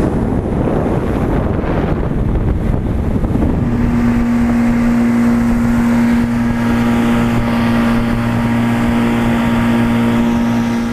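Yamaha FSH 190 Sport jet boat running under way, with wind buffeting the microphone and rushing noise. About three and a half seconds in, a steady engine hum settles in and holds.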